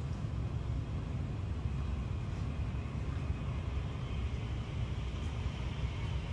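Steady low outdoor background rumble with no animal calls. A faint, thin high hum joins about four seconds in.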